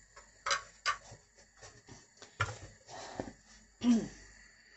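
A few light knocks and clicks of kitchen utensils around a lidded frying pan, the loudest near the end with a short falling pitch, over a faint steady hiss of vegetables frying under the lid.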